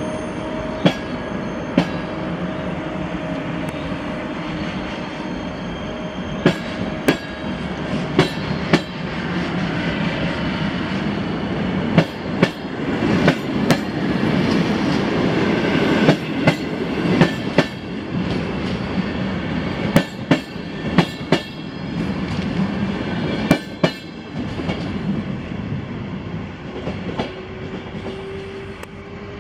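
Wheels of a long train of PKP Intercity passenger coaches rolling past, clicking sharply and irregularly over rail joints, with faint wheel squeal. The rolling noise is loudest around the middle and eases off as the last coach moves away.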